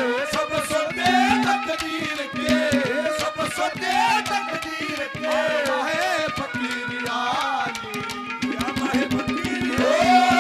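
Instrumental interlude of live Haryanvi ragni accompaniment: a hand drum beating fast strokes under a wavering melody line, with a held drone note that drops in and out.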